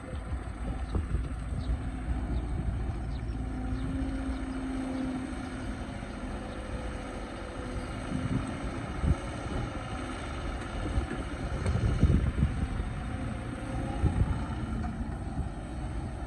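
Diesel excavator engine running steadily with a low rumble and faint shifting tones as it works. Short knocks and clunks come through, the loudest about twelve seconds in and again two seconds later.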